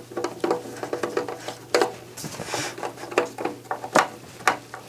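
Screwdriver working a screw into the back panel of a TEAC PD-H300C CD player's metal case: a string of irregular small metallic clicks and scrapes.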